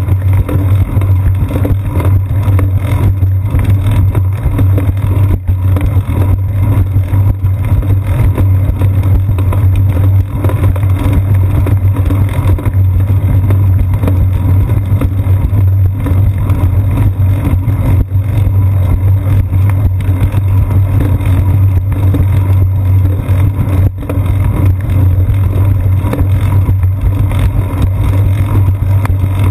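Steady low rumble of wind buffeting and road vibration picked up by a GoPro Hero 2 clamped to a bicycle's seat post as the bike rolls along a concrete path.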